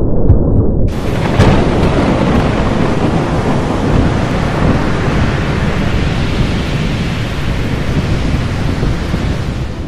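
Thunderstorm: a low rumble of thunder, then about a second in heavy rain begins with a sharp thunderclap. The steady rain noise stops just before the end.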